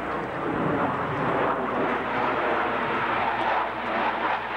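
Jet noise from F/A-18 Hornet jets in flight: a steady, dense rushing sound that swells slightly now and then.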